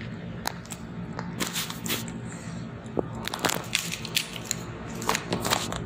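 Scattered plastic clicks and scrapes as the battery pack of a handheld marine VHF radio is pressed, twisted loose and removed, over a steady low hum.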